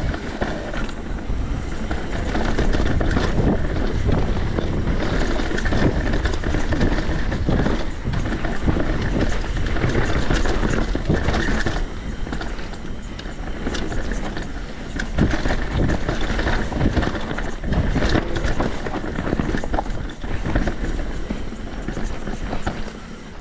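Santa Cruz V10 downhill mountain bike ridden fast down a dirt trail: a steady rush of wind on the microphone and tyre noise, with frequent knocks and rattles from the bike.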